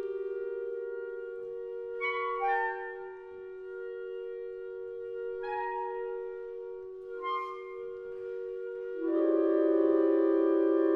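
Clarinet choir of E-flat, B-flat and bass clarinets playing: two held notes sound steadily while short higher phrases come in over them, then the whole ensemble enters on a louder sustained chord about nine seconds in.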